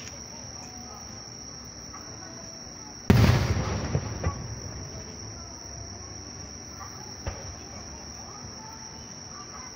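An aerial firework shell goes off with a loud boom about three seconds in, dying away over a second or so, followed by a smaller pop and, a few seconds later, a single sharp crack. Insects chirr steadily throughout as a high, even tone.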